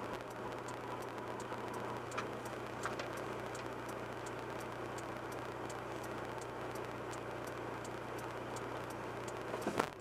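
Car waiting at a traffic light: a steady low engine hum with a regular light ticking, the turn indicator, and a short louder sound just before the end.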